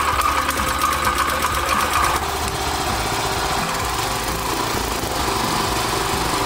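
Husqvarna TF 440 tiller's 212 cc gasoline engine running steadily.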